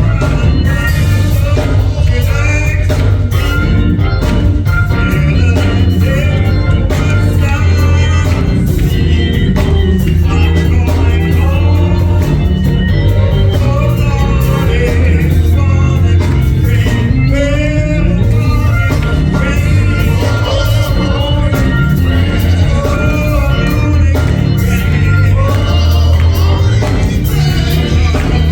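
Gospel song sung by a group of voices over band accompaniment with a strong, steady bass.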